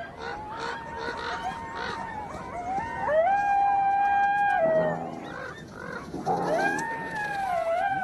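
Coyote howling: short wavering yips in the first two seconds, then one long held howl that drops in pitch at its end, and another rising-and-falling howl near the end. It is the leader calling its pack to the carcass.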